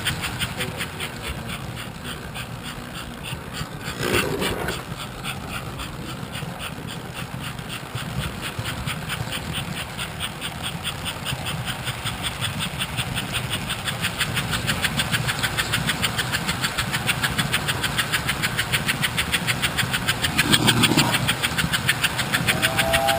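Live steam model locomotive running, its exhaust chuffing in a fast, even rhythm. A two-note whistle starts right at the end.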